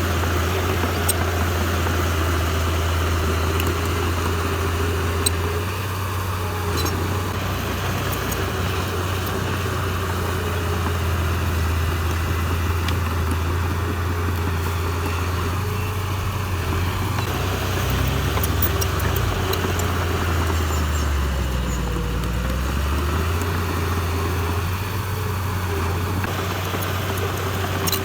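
Heavy diesel engine of earthmoving machinery running steadily. Its speed dips briefly about 21 seconds in and then comes back up, with a few faint knocks and ticks over the top.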